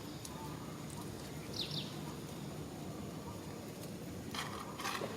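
Steady outdoor background noise with a quick pair of short, high, falling chirps from an animal about a second and a half in, and a brief harsh noise near the end.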